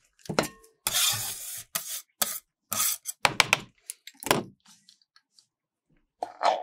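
Metal spatula scraping and knocking on the steel freezing plate of an ice cream roll machine: about ten short strokes, one a longer scrape of nearly a second. Near the end a whipped cream dispenser starts spraying with a steady hiss.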